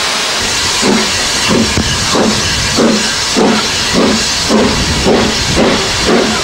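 Steam locomotive starting away: steady steam hiss, then from about a second in regular exhaust chuffs at about two a second, quickening slightly as it gathers speed.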